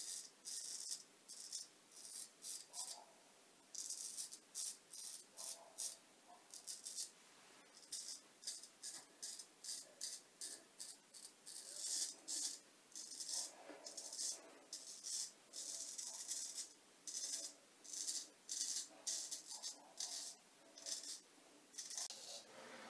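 Straight razor scraping through lathered beard stubble in many short strokes, one or two a second, each a crisp rasp.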